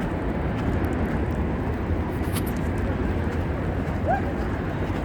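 Steady low rumbling outdoor city noise, with a short click about two seconds in and a brief rising squeak about four seconds in.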